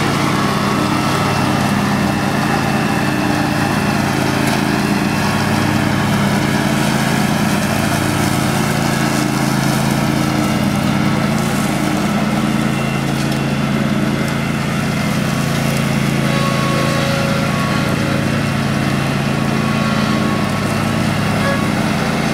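Troy-Bilt lawn tractor's 14 hp Vanguard V-twin engine running steadily while mowing, a constant engine note throughout.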